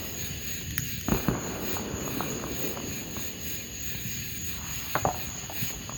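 Crickets chirping in a steady high-pitched chorus, with a few short knocks about a second in and again near five seconds.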